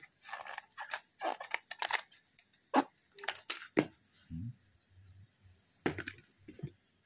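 Cardboard packaging and a black plastic bubble-wrap bag being handled and moved, a string of short rustles and knocks with a dull thump about four seconds in.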